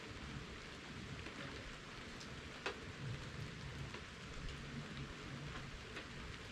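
Steady rain falling, with scattered drops ticking on a surface and one sharper drop tap about two and a half seconds in.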